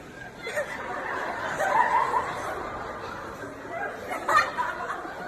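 People laughing, with some talk mixed in; the loudest bursts come about 2 seconds in and again a little past 4 seconds.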